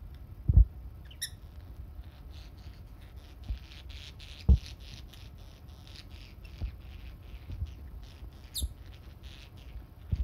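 A pet budgerigar and peach-faced lovebird chatter softly in a quick run of short chirps, with two sharper high chirps, one about a second in and one near the end. Several dull bumps sound over it, the loudest about half a second in and again about four and a half seconds in.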